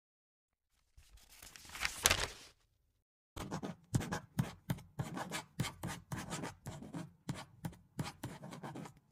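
Pencil writing on paper: a steady run of short, scratchy strokes, about three or four a second, starting a few seconds in. A brief rustle comes before it, about a second in.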